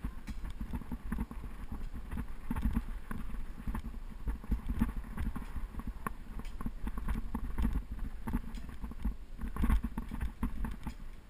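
Wind buffeting the microphone of a bike-mounted GoPro as it rides along, with irregular rattles and knocks from the bicycle and camera mount over the road surface.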